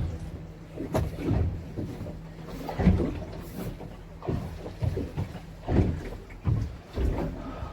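Irregular knocks and thumps on a small fishing boat, about five spread over several seconds, over a low steady rumble of wind on the microphone.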